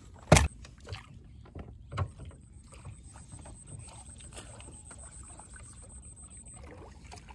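A thrown fish lands with one sharp thud about a third of a second in. Small knocks and rustles follow as hands work a fishing hand line in a wooden boat, with a faint steady high whine underneath that stops near the end.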